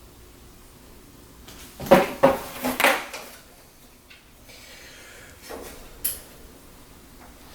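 Hard computer parts clattering and knocking as they are handled: a quick run of several knocks about two seconds in, then a single click about six seconds in.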